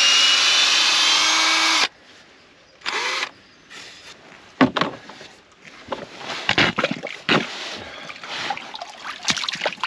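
Cordless drill boring into a steel hull plate, its motor whine rising slightly, then stopping about two seconds in. A brief second burst of drilling follows about a second later, then scattered knocks and scrapes, with one sharp knock near the middle.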